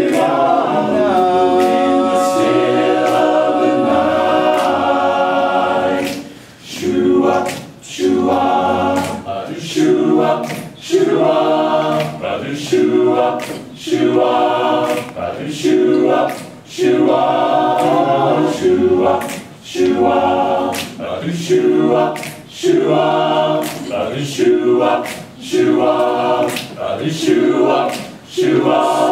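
Men's barbershop chorus singing a cappella in close harmony. A long held chord opens, then about six seconds in the singing breaks into short chords repeated in a steady rhythm, with brief gaps between them.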